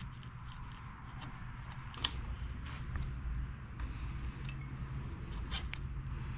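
Small metallic clicks and ticks of control cables and their fittings being handled and fitted at a scooter's handlebar, the sharpest click about two seconds in. A steady low hum runs underneath.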